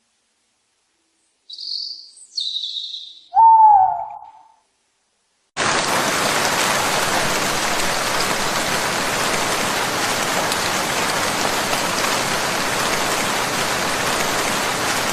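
Two short high bird chirps, then a louder, lower bird call that drops slightly in pitch. About five and a half seconds in, a steady rain-like hiss starts abruptly and runs on.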